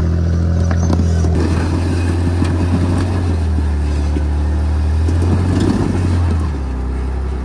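Off-road 4x4's engine running at low revs as it crawls up a rocky climb, with scattered sharp clicks and crunches of tyres on stone. The engine note eases a little near the end.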